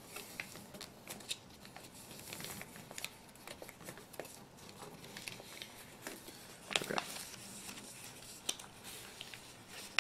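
A sheet of paper being creased and collapsed along pleats by hand: many short, crisp rustles and crackles as the folds are pressed, with one louder crinkle about seven seconds in.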